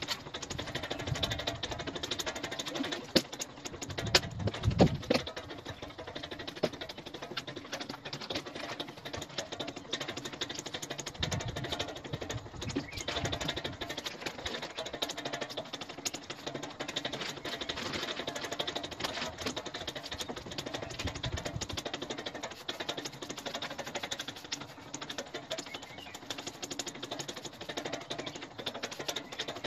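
Rain pattering steadily, with dense drops ticking close to the microphone, and a few heavier knocks about four to five seconds in.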